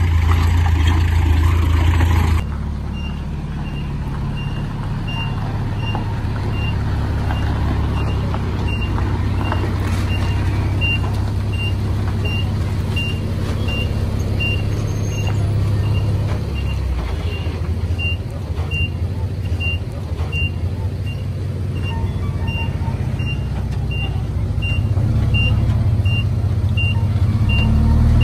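Heavy diesel earthmoving machinery running with a low rumble while a reversing alarm gives short high-pitched beeps, about two a second. The sound changes abruptly about two seconds in, and the beeping starts soon after.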